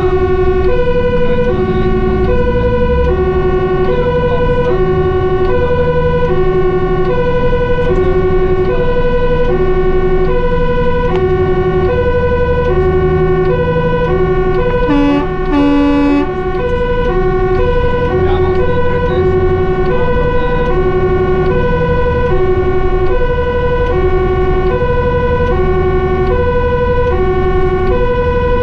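Fire truck's two-tone siren, alternating between a low and a high note about every 0.6 s, heard from inside the cab over the truck's diesel engine. About halfway through it is broken by two short blasts of a lower tone.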